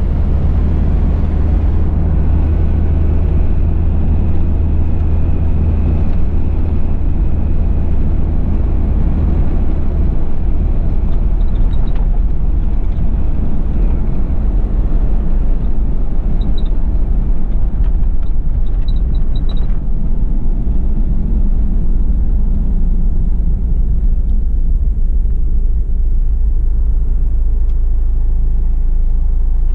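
1991 Toyota Land Cruiser Prado LJ78's 2L-T turbo diesel four-cylinder and road noise heard from inside the cab while cruising: a steady low drone with a very slight turbo whine.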